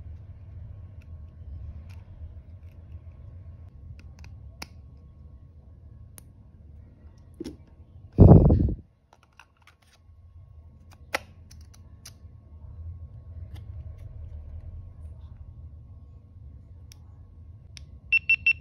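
Small plastic clicks of a microSD card and battery being fitted into a GoPro Hero10 Black, with one loud low thump about eight seconds in. Near the end the camera powers on with three short high beeps.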